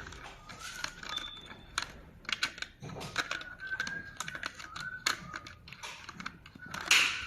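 Irregular small clicks and taps of plastic and metal parts being handled while an ultrasonic flowmeter is taken apart, with a louder scrape near the end.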